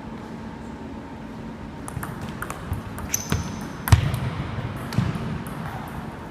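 A few sharp, irregular clicks of a table tennis ball bouncing on the table and striking a bat, starting about two seconds in, over a steady hum in the hall. The loudest is a heavier thump just before four seconds in.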